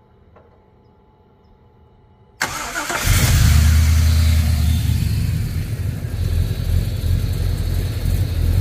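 A car's V8 engine is cranked and fires up about two and a half seconds in. It runs loud for a moment, then settles into a steady idle.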